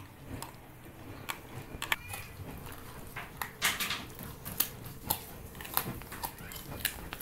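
Border collie gnawing a home-dried bull pizzle (bully stick): sharp crunches and cracks of its teeth on the hard, dry chew at an uneven pace, about one or two a second.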